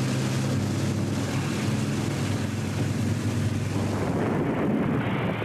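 Aircraft engines droning low and steady, with a rush of air noise. About four seconds in, the engine note stops and only a rushing noise remains, swelling briefly before it fades.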